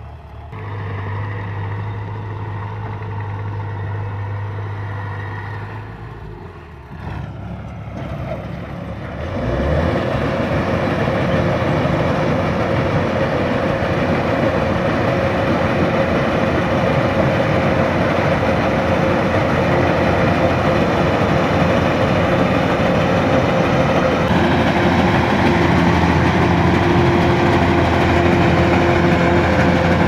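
Tracked rice combine harvester running as it cuts rice, its engine and threshing machinery going together. About ten seconds in the sound grows much louder and denser, with a steady hum running through it.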